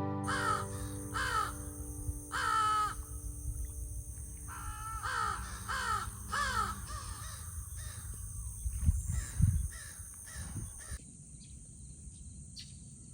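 Crows cawing repeatedly, harsh calls that each fall in pitch, for about the first seven seconds, over a steady high hiss and a low rumble. The sound drops off abruptly about eleven seconds in.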